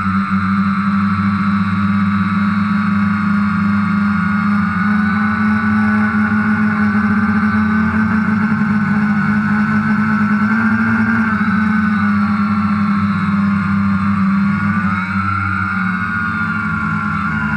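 DJI Phantom quadcopter's propellers and motors buzzing steadily in flight, a low hum with a higher whine of several close pitches that waver against each other as the motors adjust speed.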